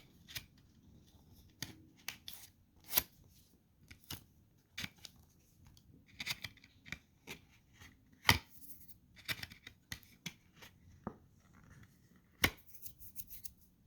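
Hands working a trading card and its plastic holder, taking it apart to clean it: scattered sharp clicks and taps, with short scrapes and rustles between them. The loudest clicks come about three, eight and twelve and a half seconds in.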